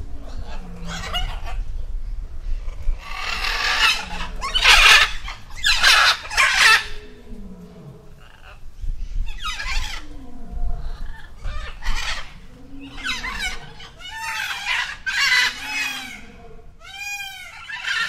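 Peacock calling over and over: a series of loud, harsh cries, some in quick pairs, with calls near the end that rise and fall in pitch.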